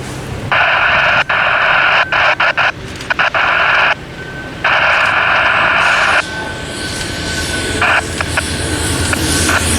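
Commuter-rail locomotive air horn sounding: a long blast that breaks up briefly in the middle, a second long blast, then a short toot, over a low rumble of the approaching train.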